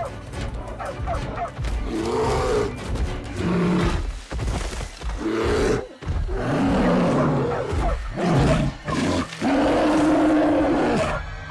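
A bear roaring and growling in a series of calls, each a half-second to a second and a half long, the longest and loudest near the end, with music underneath.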